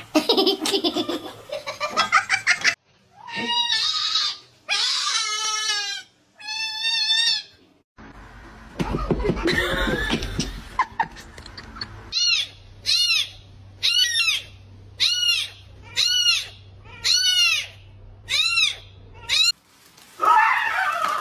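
A string of animal calls: a few drawn-out calls, then about a dozen short calls in a row, each rising and falling in pitch, roughly three every two seconds.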